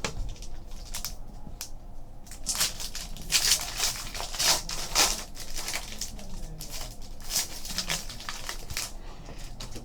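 A trading card pack's wrapper being torn open and crinkled by hand, with a few light clicks at first and then a long run of dense rustling and crumpling.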